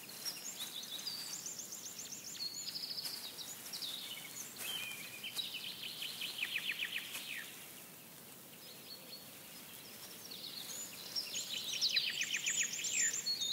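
Songbirds singing in woodland: several high, quick trilled phrases of rapidly repeated notes, some falling in pitch, over a soft background hiss, with a lull around the middle.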